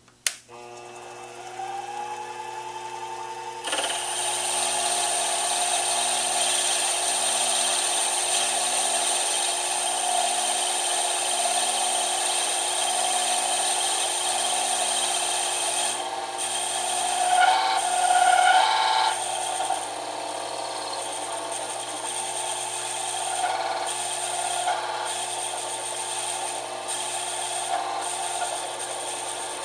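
Sherline benchtop lathe switched on with a click, its motor spinning up with a rising whine. A few seconds in the turning tool starts cutting the spinning part, giving a steady cutting noise over the motor hum, louder for a couple of seconds a little past halfway.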